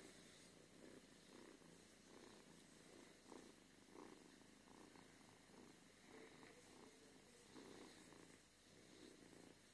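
A domestic cat purring faintly and steadily while being brushed, the purr swelling and fading in an even rhythm about every half second.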